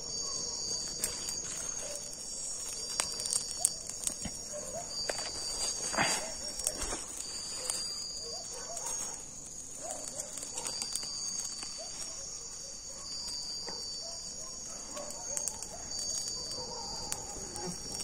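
Steady shrill chorus of crickets and other night insects, with scattered crackles and rustles from a small fire of wet leaves being fed by hand. Faint dogs bark and yelp in the distance now and then.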